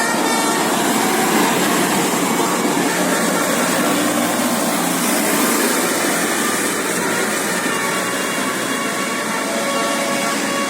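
A bus's engine running, a steady noisy rush, without its musical horn sounding.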